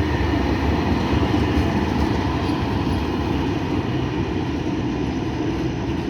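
Freight train running past with a steady rolling rumble from its wheels and wagons, easing off slightly near the end.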